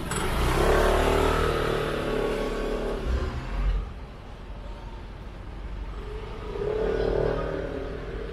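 A motor vehicle drives past close by. Its engine is loudest about a second in and fades by about four seconds, and a second vehicle's engine rises and falls near the end.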